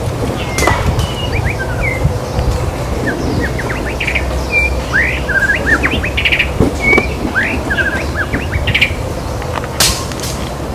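White-rumped shama (murai batu) singing a quick, varied run of whistled notes, slurred phrases and short trills, over a steady low background rumble. A sharp click comes near the end.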